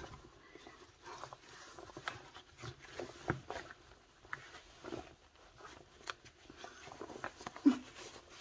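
Scattered rustling and rubbing of dry suit fabric as its tight neck seal is tugged over a head, with a short strained grunt near the end.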